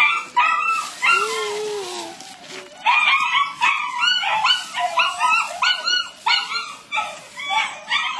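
Small black puppy yapping in quick, high-pitched barks, about two or three a second, with a short break about a second in.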